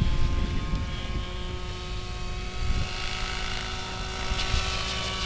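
Large radio-controlled scale helicopter in flight at a distance: a steady drone from its engine and rotor, holding several even pitches.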